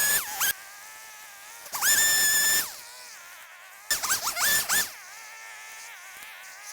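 Two-stroke chainsaw revving in three short bursts, each rising quickly to a high whine and dropping back to a steady idle between them.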